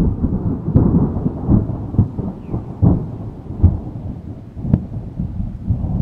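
A close thunderclap breaks out suddenly, then rolls on as a deep crackling rumble with repeated sharp cracks for several seconds. It begins to die away near the end.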